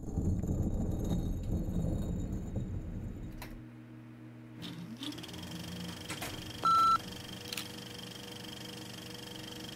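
Film-leader countdown sound effect: a few sharp clicks over a faint steady hum, and one short steady beep about seven seconds in, the loudest sound. Before the countdown, a low rumble for the first three seconds or so.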